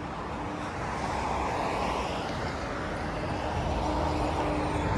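Road traffic on a busy multi-lane street: steady tyre and engine noise with a faint low engine hum, growing gradually louder as vehicles pass.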